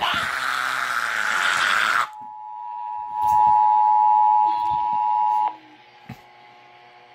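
Emergency Alert System broadcast over the radio: a harsh, buzzy digital data burst for about two seconds, then the two-tone EAS attention signal holding steady for about three seconds before cutting off abruptly. These are the header and attention tones that come before the monthly test announcement.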